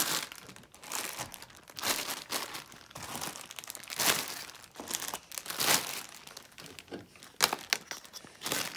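Plastic packs of latex balloons crinkling and rustling in irregular bursts as they are handled and pulled off pushpins in a wall.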